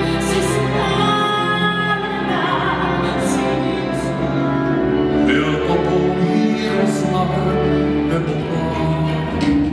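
Stage musical number: operatic-style singing over accompanying music.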